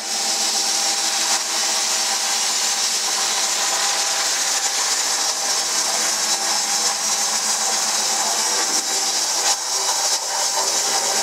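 Twin Bosch 044 electric fuel pumps running steadily: a continuous motor whine over a strong hiss.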